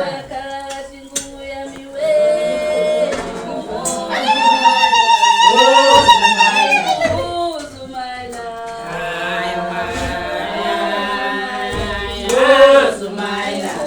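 A group of voices singing together in chorus, with long held notes; the loudest, highest held notes come in the middle.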